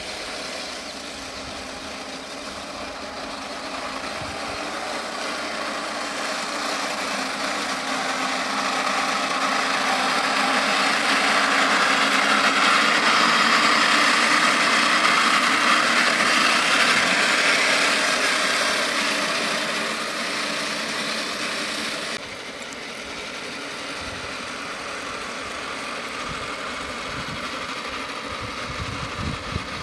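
Running noise of a 3D-printed model T-34 tank driving through grass, a steady mechanical whirr that grows louder as it comes close, peaks, then drops suddenly about 22 seconds in.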